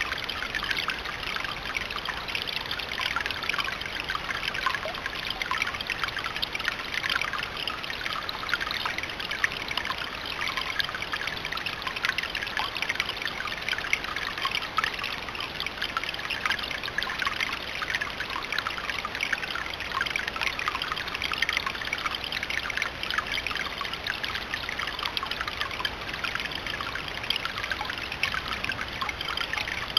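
Garden rock fountain trickling steadily, water splashing and dribbling over the stone in a constant patter of fine droplets.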